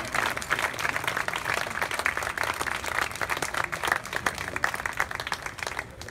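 Audience applauding, a dense patter of many hands clapping that thins out and drops in level near the end.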